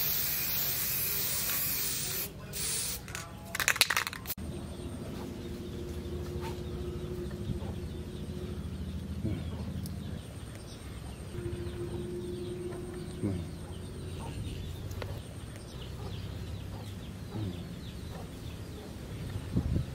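Aerosol spray can hissing as it coats a machete blade: a steady spray for about two seconds, then a few short bursts, stopping about four seconds in. After that only a faint outdoor background remains.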